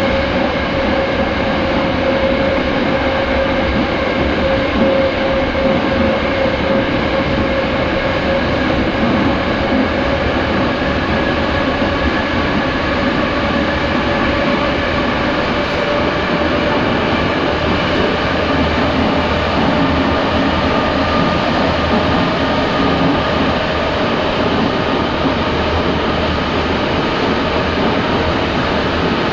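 Vintage Moscow metro car running at speed through a tunnel, heard from inside the car: a steady rumble of wheels on rails with a whine that slowly falls in pitch.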